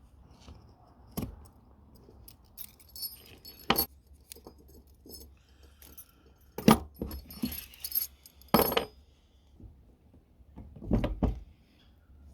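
Small copper pieces jingling and clinking as they are handled, with scattered knocks on a work surface, heaviest near the end.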